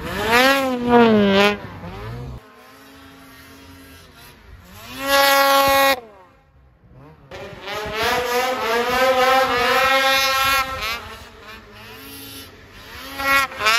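Snowmobile engines revving hard through deep powder, the pitch climbing and falling with the throttle over several passes. The sound drops out to near silence for about a second a little before the middle.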